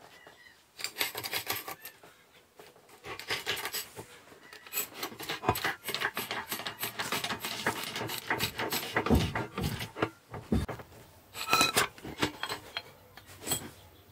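Steel parts and tools clicking and scraping in a bottle-jack press during control-arm bushing work, in irregular clusters, with a couple of low thuds past the middle.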